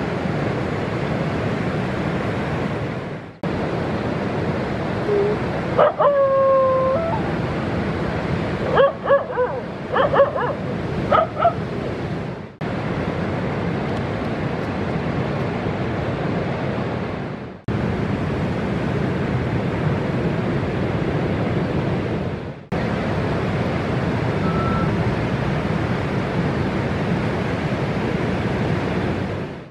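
Steady rush of surf breaking on the beach, broken by brief gaps every few seconds. Around the middle a dog yelps and whines a few times, short pitched calls, one of them sliding in pitch.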